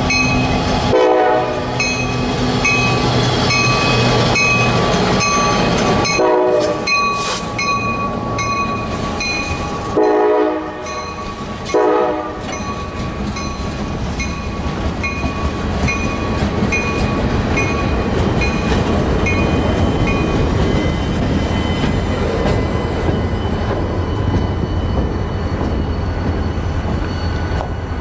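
EMD GP38-3 diesel locomotive on a local freight sounding its horn in several blasts, about one, six and ten to twelve seconds in, over its running engine, while a bell rings about twice a second. From about fourteen seconds the train rumbles past steadily.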